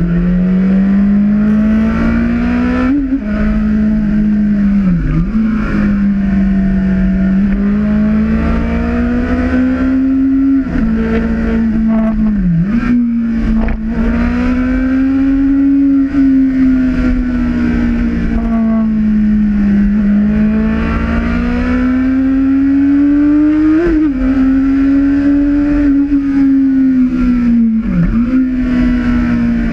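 Honda CB1000R's inline-four engine running under way, its note rising and falling smoothly with the throttle, with several brief sharp breaks in pitch at gear changes. Low wind rumble on the microphone underneath.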